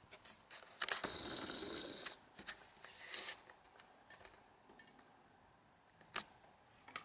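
Faint camera zoom motor running for about a second, a second into the clip, with a shorter run about three seconds in. A few sharp handling clicks from fingers on a plastic radio casing.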